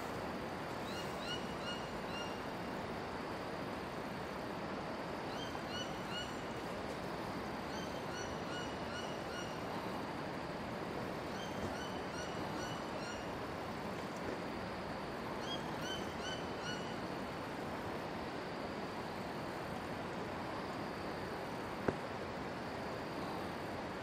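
Blue bird-of-paradise calling: five short runs of three to five quick notes each, a few seconds apart, over a steady background hiss.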